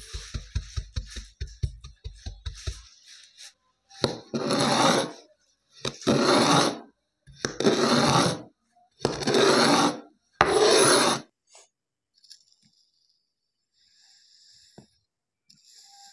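A knife slicing through a slab of pressed kinetic sand, five strokes each about a second long, one roughly every second and a half.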